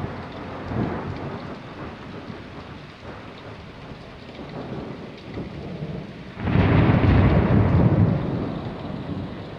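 Rain falling steadily during a thunderstorm. A loud rumble of thunder breaks in suddenly about six seconds in, holds for about two seconds, then fades.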